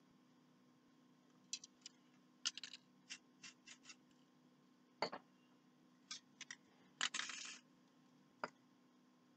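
Light clicks and knocks of objects being handled on a spray-art work table, scattered irregularly, with a short hiss about seven seconds in.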